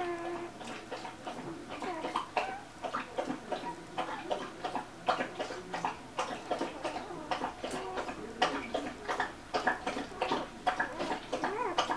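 Two-day-old golden retriever puppies squeaking and grunting briefly a few times as they wriggle in a pile, amid many small clicks and smacking sounds.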